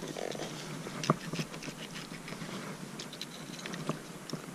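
Light scattered clicks and scrapes of a knife and hands handling wet channel catfish, nicking them under the gills to bleed them out.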